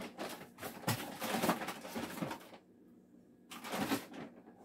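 Kitchen containers and utensils knocking and clattering as someone rummages in a low cupboard. The rattling runs for the first two seconds or so, pauses, then comes again briefly near the end.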